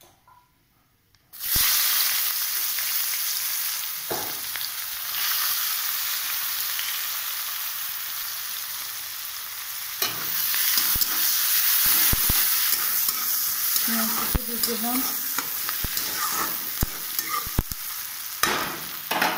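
Sliced onion dropped into hot oil tempered with nigella seeds in a metal kadai: a loud sizzle starts suddenly about a second in and carries on steadily as the onion fries. From about halfway, a spatula stirs the onion, clicking and scraping against the pan over the sizzle.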